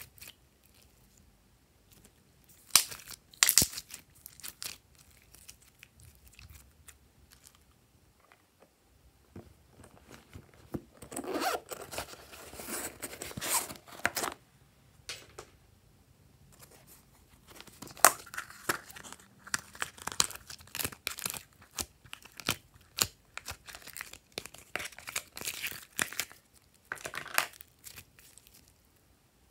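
Hands squeezing, stretching and folding a lump of glossy pink slime, making irregular sticky pops and crackles with short quiet pauses between handfuls. A denser run of crackling sounds for a few seconds before the middle.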